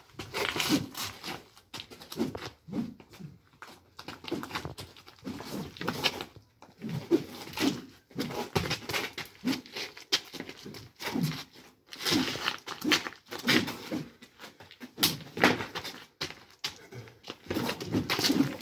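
Sparring sticks clacking against each other and landing hits in quick, irregular flurries, with short lulls between exchanges.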